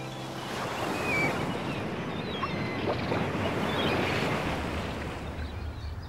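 Ocean surf washing steadily, with some wind, and a low rumble joining about two-thirds of the way through.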